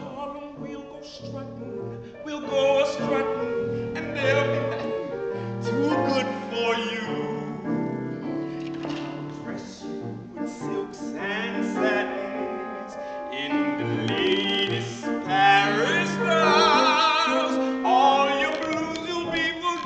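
Tenor singing in classical operatic style with piano accompaniment; a high held note near the end carries a wide vibrato.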